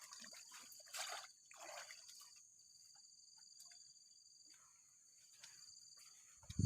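Insects droning steadily at a high pitch, with a few soft rustles and knocks and one sharp knock at the very end.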